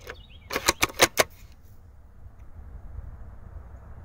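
An airsoft spring bolt-action sniper rifle (M40A3 replica) having its bolt worked: a quick run of about five sharp metallic clicks over under a second, about half a second in, as the bolt is cocked and chambered for the next shot.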